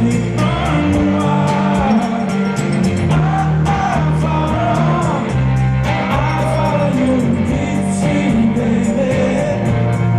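Live rock band playing with drums keeping a steady, hard-hit beat under bass and guitar, and a voice singing the melody over it.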